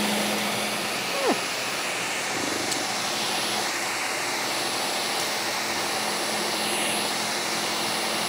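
Electric kitchen blender running steadily with an even whir.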